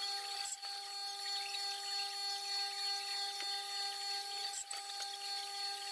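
An electric power-tool motor running steadily at one pitch, a constant hum with no cutting. There are light knocks about half a second in and near the end.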